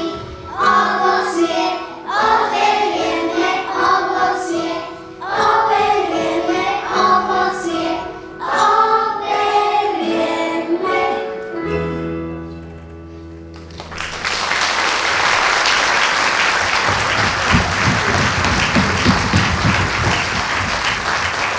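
Children's choir singing with instrumental accompaniment, ending on a held final chord about 11 seconds in. Audience applause starts about 14 seconds in and goes on to the end.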